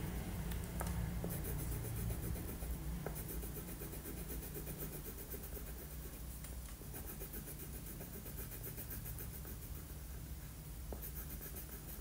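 Crayon scratching on paper in quick back-and-forth colouring strokes, coming and going in short stretches, over a low steady hum.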